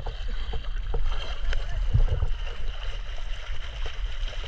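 Water sloshing and splashing around a camera held at the surface of open water, with small scattered splashes over a steady low rumble.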